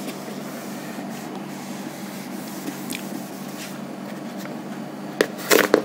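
A whiteboard duster rubbing across a whiteboard, wiping off marker writing, as a steady swishing hiss. A few short knocks come near the end.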